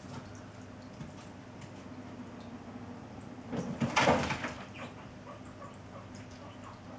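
A cat's paws scrabbling and skidding on a wooden floor as it pounces on a laser dot, in one brief scratchy flurry about four seconds in, over a steady low hum.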